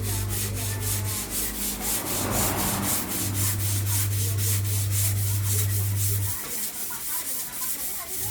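Rhythmic rubbing or scraping, about four strokes a second, over a steady low hum that drops out near the end.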